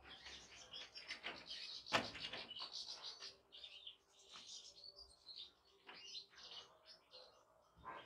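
Caged European goldfinches twittering: a scatter of short, high chirps. A sharp click about two seconds in is the loudest sound.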